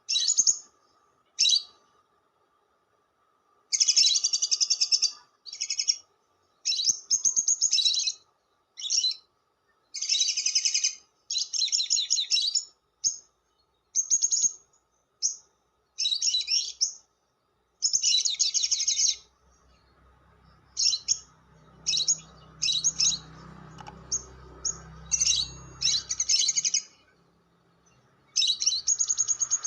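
Lovebird chattering in repeated shrill, buzzy bursts, each lasting about half a second to a second and a half, with short gaps between them. The bursts turn shorter and more broken in the second half.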